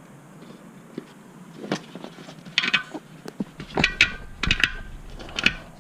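Irregular knocks, clinks and rubbing as a tire, tube and liner are worked by hand onto an e-bike wheel rim, with a busier, louder cluster of knocks a little past the middle.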